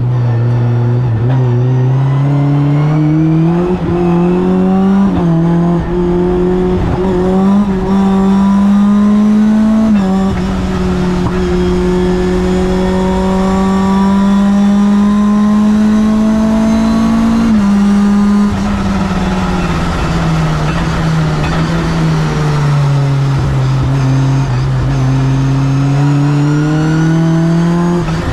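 Mitjet 2L race car's engine heard from inside the cockpit, running hard on a lap. Its pitch climbs and falls with the revs, steps suddenly at gear changes about ten and seventeen seconds in, sinks low through the later part, then rises again near the end.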